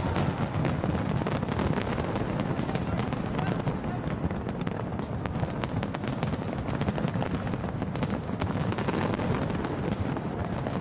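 Large aerial fireworks display: a dense, continuous barrage of bangs and crackles, many reports every second with no let-up.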